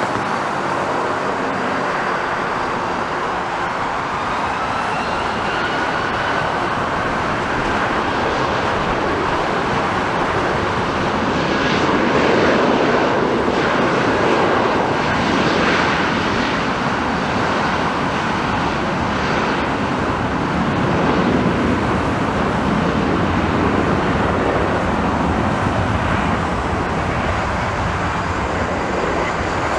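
Jet airliner engines at takeoff power, a steady rushing noise with a faint whine rising in pitch over the first several seconds, growing loudest about halfway through.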